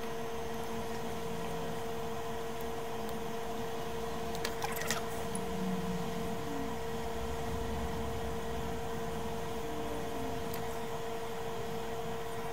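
A steady electrical hum with faint hiss, and a short run of small clicks about four and a half seconds in.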